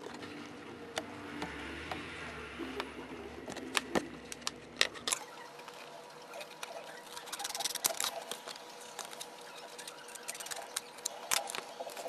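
Small, scattered clicks and taps from handling a mechanical pencil and its parts, with a few sharper clicks about four to five seconds in and again near the end.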